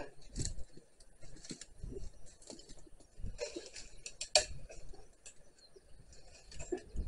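Twigs and dry branches snapping and rustling in irregular clicks and crackles as a cut, hung-up spruce stem is shifted by hand through surrounding branches and brash, with one sharper snap about four seconds in.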